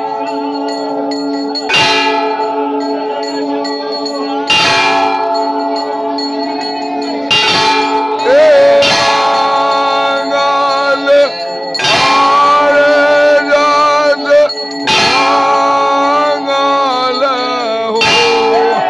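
Temple bells ringing during an aarti: a sustained ring with a heavy strike about every three seconds. From about eight seconds in, singing joins the bells.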